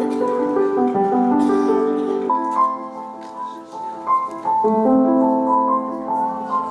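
Slow piano music playing held chords, which soften for a moment in the middle before fuller chords return.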